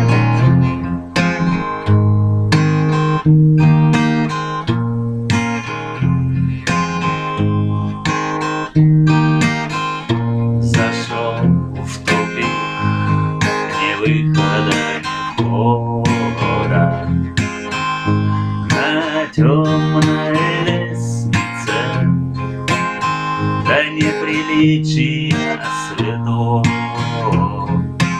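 Acoustic guitar music: chords strummed in a steady rhythm.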